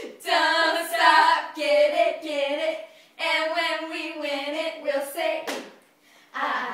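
Girls chanting a cheer together in sing-song unison, two long phrases, followed by a sharp smack about five and a half seconds in.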